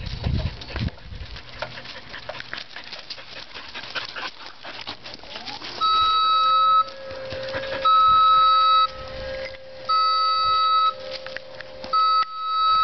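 Man-lift raising its basket: a motor whine rises in pitch as it spins up and then holds steady, while the lift's motion alarm sounds loud one-second beeps about every two seconds, starting about six seconds in.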